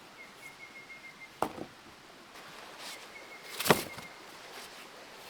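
Two sharp knocks about two seconds apart, the second louder, with a faint high, pulsing trill in between.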